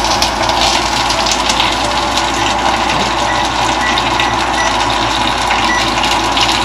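Gyoza sizzling and crackling steadily in a hot frying pan under a glass lid, which is lifted partway through. They are frying hard enough that the bottoms are scorching.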